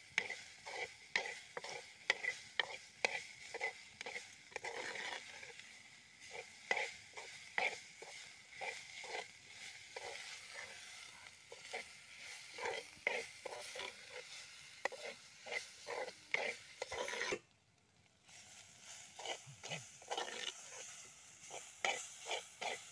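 A steel spoon stirring sliced onions and green chillies in a clay pot, scraping about twice a second over a faint sizzle of the onions frying. The stirring breaks off briefly about 17 seconds in, then resumes.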